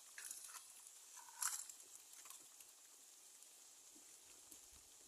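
Eggs frying faintly in a pan: a soft, steady sizzling hiss with a few small crackles and one sharper pop about a second and a half in.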